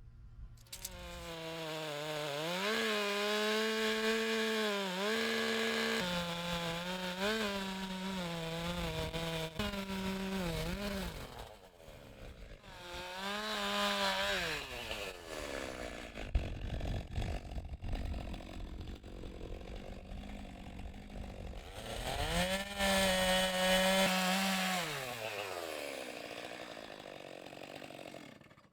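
Two-stroke chainsaw cutting a large wet elm log. The engine revs up, its pitch dipping and wavering under load in the cut, then eases back to a low, rough run in between. It revs hard three times, and the note falls steadily as it winds down near the end.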